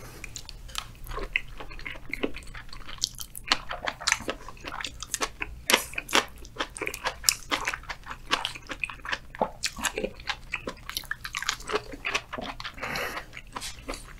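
Close-miked eating sounds of a giant oyster being bitten and chewed: a dense, irregular run of wet clicks and crunchy crackles.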